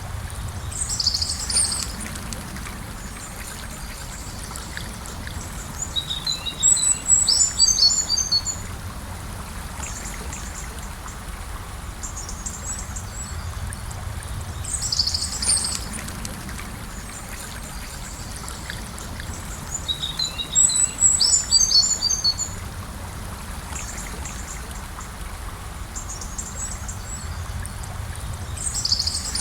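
Gentle river flowing steadily, with songbirds calling over it: a short call about a second in, halfway and near the end, and a burst of rapid chirps twice, the same phrases recurring about every fourteen seconds.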